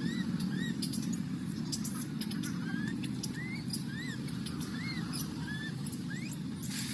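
Baby macaque crying: a run of short, high, arched squeals, repeated about every half second, over a steady low rumble.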